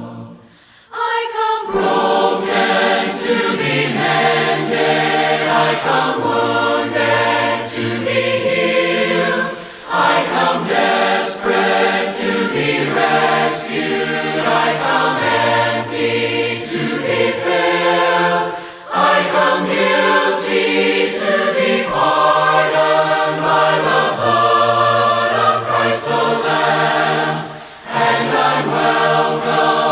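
A choir singing a hymn a cappella in several parts, beginning a moment in after a short gap and pausing briefly between phrases about every nine seconds.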